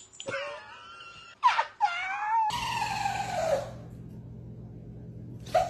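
A pet animal giving a series of drawn-out wailing cries that glide up and down in pitch. The longest cry, about two and a half seconds in, slides steadily downward for about a second over a low steady hum. Another cry starts near the end.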